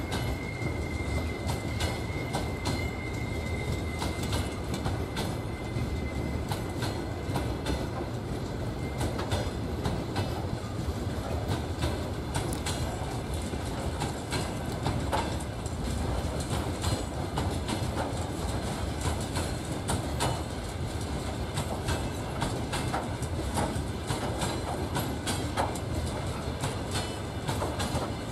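Freight train's hopper wagons rolling past with a steady rumble and the wheels clicking over rail joints. A thin high wheel squeal runs through the first few seconds.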